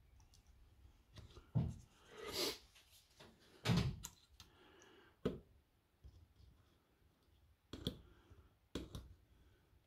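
Hand tools being handled while soldering a lead on a battery circuit board: about six scattered light knocks and clicks as a screwdriver and soldering iron are picked up, set down and pressed onto the metal tab. The loudest is a thump nearly four seconds in, and there is a short rustling scrape about two and a half seconds in.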